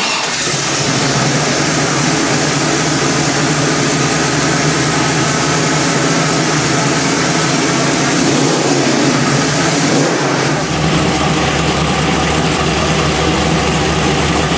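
Trophy truck's race engine on its first start-up, catching abruptly and running at a steady idle. Its sound turns lower and heavier about ten seconds in.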